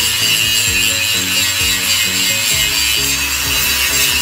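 Angle grinder's abrasive cut-off disc cutting into steel deck plate, a steady high-pitched grinding screech, with background music underneath.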